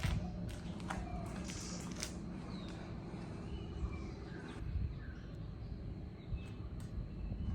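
Outdoor ambience: scattered short bird chirps over a steady low rumble, with a few sharp clicks in the first two seconds.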